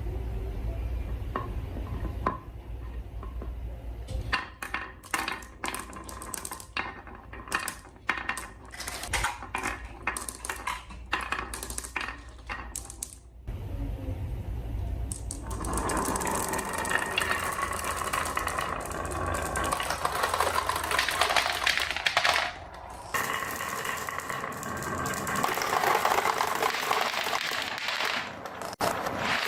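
Marbles rolling and clacking along a wooden marble run: separate sharp clicks at first, then from about halfway a dense, continuous rattle of many marbles running together.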